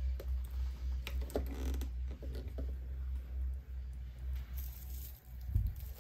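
Faint clicks and light rustling of dried flower stems being handled and tucked into a wreath, over a steady low hum, with a soft bump near the end.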